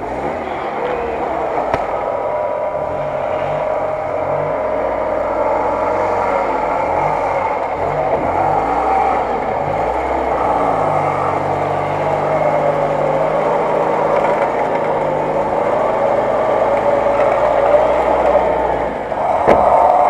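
UAZ-469 off-roader's engine running under load, revving up and down as the vehicle is winched up a steep muddy bank, with a wavering whine over it. There is a sharp knock near the end.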